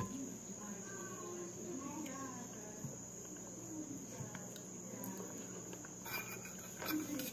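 Quiet eating with the fingers: faint chewing and handling of food, with a few soft clicks and a slightly louder moment near the end, over a steady high-pitched whine.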